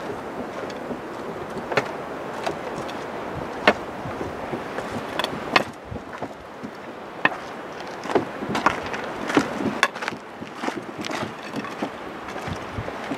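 Scattered sharp clicks and knocks from a porter walking past on a rocky trail: footfalls, a walking stick on stone and the rattle of a load of metal pipes, crowding together when the porter is closest, over a steady hiss of wind.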